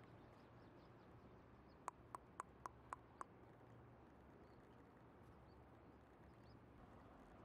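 Near silence with a faint low hum, broken about two seconds in by six light, evenly spaced clicks, about four a second.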